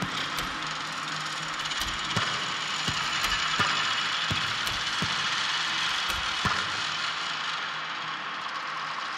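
Electronic sound design made in Ableton Live: a dense hiss-like texture, strongest in the upper middle range, with about a dozen irregular sharp clicks scattered through it. It swells in the middle and eases slightly near the end.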